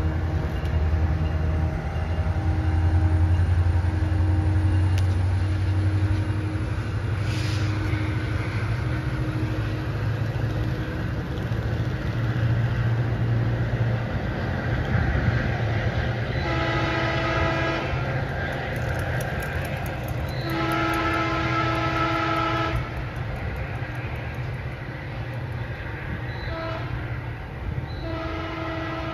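A Metrolink train's diesel locomotive rumbling as the train pulls away and recedes. Its air horn then sounds the grade-crossing pattern: two long blasts, a short one, and a long one starting near the end.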